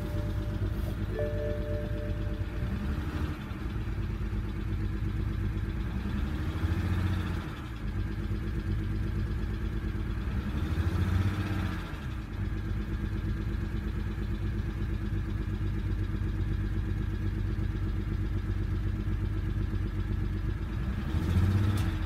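BMW N54 3.0-litre twin-turbo inline-six idling, revved briefly a few times. The engine is misfiring on cylinder 6 (code P0306), which the owner takes to be the main problem.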